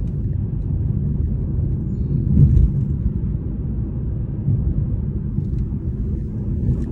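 Steady low rumble of a vehicle on the move, road noise with no speech.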